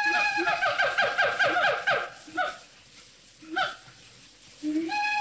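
A monkey's call: a held high note that breaks into rapid chattering of about eight short falling notes a second for about two seconds. Two short single cries follow, and the call starts again near the end.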